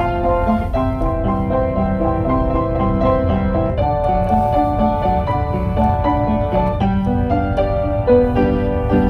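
Background music led by a piano, playing a gentle melody over a steady low accompaniment.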